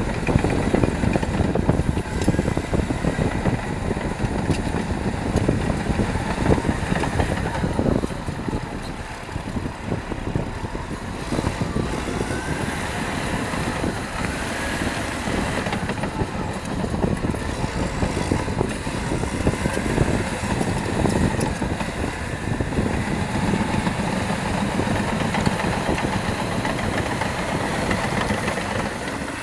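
Caterpillar D6R LGP bulldozer's diesel engine working steadily under load as the dozer pushes stone, with a dense clatter of knocks throughout.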